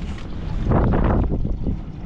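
Wind buffeting the microphone on a trolling boat, with a stronger gust about a second in, over the steady low hum of the boat's motor.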